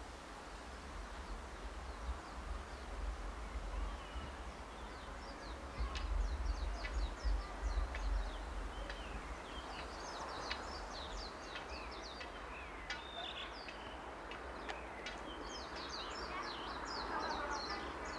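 Small birds chirping and twittering in quick, high series, starting a few seconds in and busiest near the end, over a steady low rumble.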